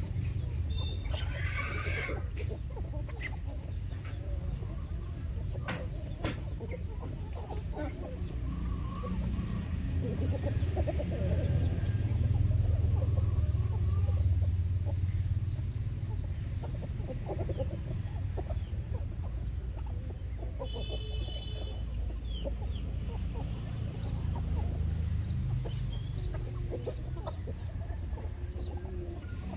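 Chickens clucking as they peck at food on the ground. A high, quickly repeated chirping call sounds in four spells in the background, over a steady low rumble that grows louder in the middle.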